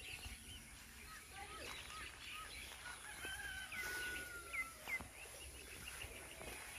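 Faint rural outdoor ambience: a rooster crows once, a long call about three seconds in, while small birds chirp with short rising notes.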